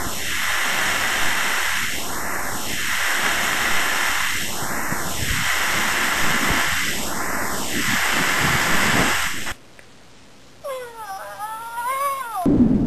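Static-like hissing noise, put through a sweeping phaser effect that rises and falls about every two and a half seconds, cutting off abruptly about nine and a half seconds in. Near the end comes a short wavering pitched sound that bends up and down.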